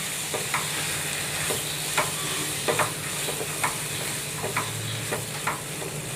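Prawns sizzling in an oily onion-tomato masala in a pan while a spatula stirs them. A steady hiss runs under irregular light taps and scrapes of the spatula against the pan.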